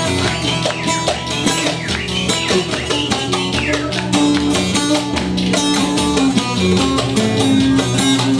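Instrumental folk dance music: a plucked string instrument playing a lively melody over a steady, quick percussion beat.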